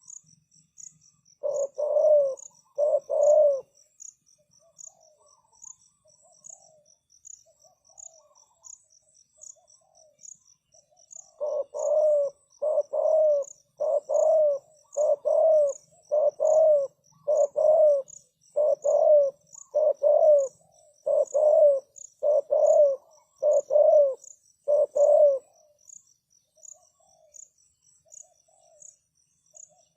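Spotted dove cooing in low, hollow notes: a pair of coos about two seconds in, then a long steady run of coos from about eleven to twenty-five seconds in. Crickets chirp in a fast, steady pulse throughout.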